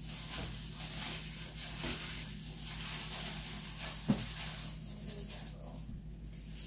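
Dry, crackly rustling of green rice flakes (cốm dẹp) moistened with coconut water being tossed and mixed in a bowl, with one short knock about four seconds in.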